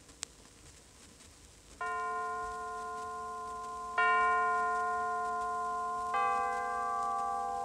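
Bell-like musical chimes, scene-change music in a radio play: after a stretch of faint record hiss with a single click, three pitched tones enter about two seconds apart, each ringing on under the next.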